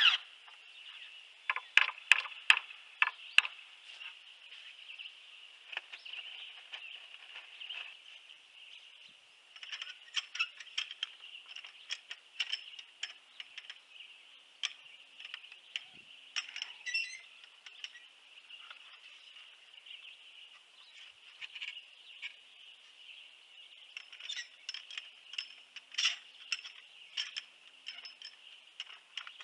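A cordless drill cuts off at the start, followed by scattered sharp metallic clicks and taps of hand work on a metal shelf bracket and its screws at a wooden post, over a steady faint high hiss.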